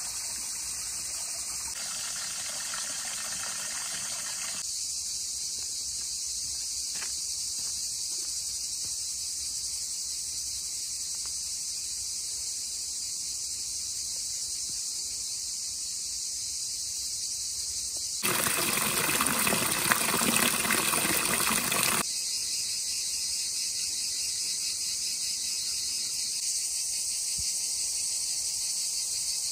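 Steady high-pitched insect chorus. About two-thirds of the way in, a louder rushing noise covers it for about four seconds and then stops suddenly.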